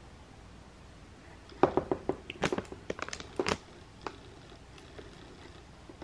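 Handling noise from a plastic toy RC truck and its packaging: a quick run of light clicks and crinkly rustles lasting about two seconds, starting a second and a half in.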